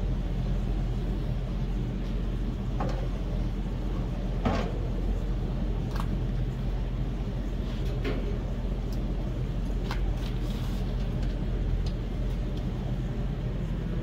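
A steady low motor hum runs throughout, with a few short metallic clinks as the steel grate is set over hot charcoal in a small charcoal grill.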